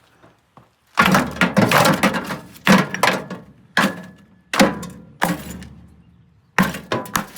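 A series of loud, sharp cracks and pops from light bulbs being microwaved inside a microwave oven, about six bursts over five or six seconds starting about a second in, each dying away quickly.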